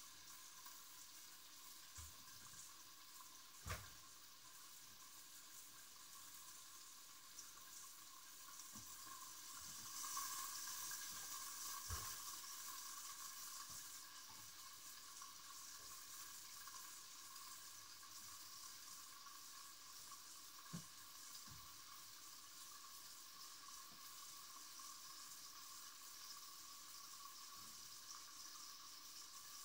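Near silence: faint steady hiss of room tone with a few soft, scattered knocks and a brief, slightly louder rustling stretch about ten seconds in.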